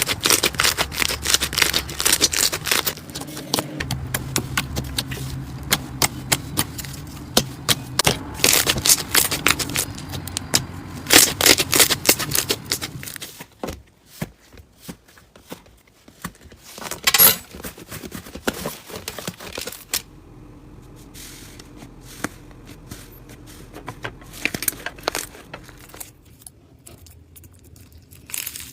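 Slime being squished and worked, giving dense crackling and popping clicks. The clicks thin out about halfway through, with one loud pop and then sparser, quieter crackles.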